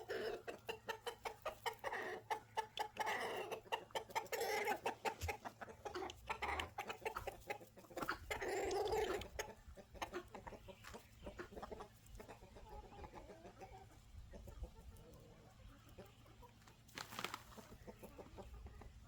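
Backyard chickens clucking, busy and close in the first half, then quieter, sparser clucks.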